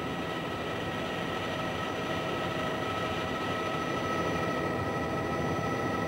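Bell 206 JetRanger helicopter in cruise heard from inside the cabin: a steady drone of rotor, airflow and turbine with a few constant high whining tones from the turbine and gearbox.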